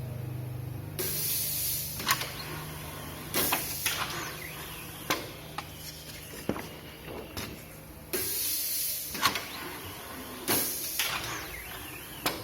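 Pneumatic automatic screen-printing machine cycling: air cylinders letting out four short hisses of exhaust air, each about a second long, with sharp clunks as the moving parts stop, over a low hum that fades.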